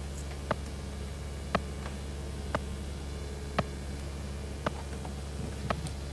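Countdown device's timer ticking, one sharp tick about every second, over a steady low electronic hum: a science-fiction sound effect.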